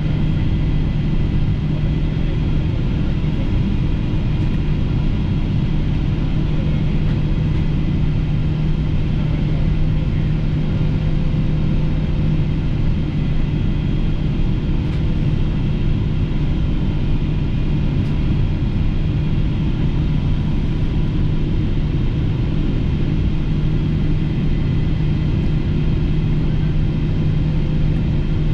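Steady cabin noise inside a Boeing 777-200LR descending on approach: a deep, even drone from its GE90 turbofans and the airflow, with a few faint steady whines above it.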